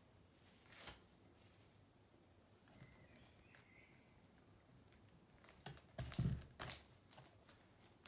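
Quiet handling sounds from a cake-decorating turntable spinning a painted canvas. There is a soft rustle about a second in, then a cluster of soft knocks and thumps about six seconds in as the spin is stopped by hand.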